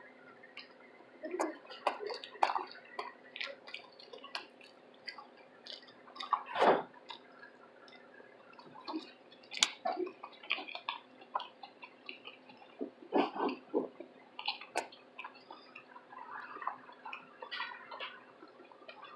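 Close-miked chewing of a loaded chili cheese slaw veggie dog: wet, irregular mouth clicks and smacks, with one louder mouth sound about seven seconds in.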